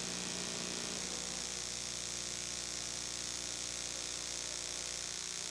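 Steady electrical hum with a layer of hiss at an even level: the background noise of an old off-air videotape recording.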